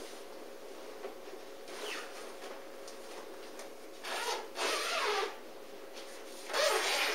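Camouflage pop-up blind's fabric rustling and rubbing in two short bursts, about four seconds in and again near the end, as a window flap is worked open from inside.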